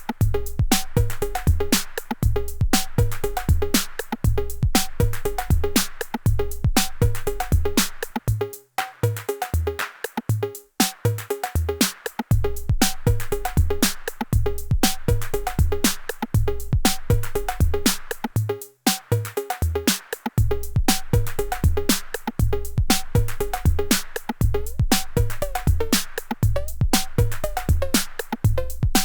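IK Multimedia UNO Drum hybrid analog/PCM drum machine playing a programmed pattern: a deep kick on a steady beat under fast, dense hi-hat ticks, with the beat dropping out briefly a few times.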